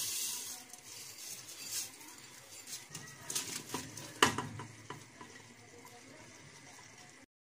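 Dry lentils pouring into a pot of liquid, then sliced onions scraped from a clay dish into the pot with scattered clicks and knocks of the dish against the pot, the loudest about four seconds in. The sound cuts off just before the end.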